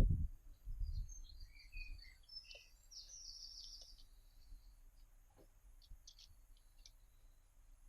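A small bird giving short high chirps and trills, loudest about three seconds in, over a low rumble in the first second.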